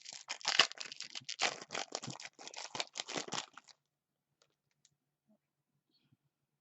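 Trading cards being handled and flipped through: a quick run of crackly clicks and rustles that stops after about three and a half seconds.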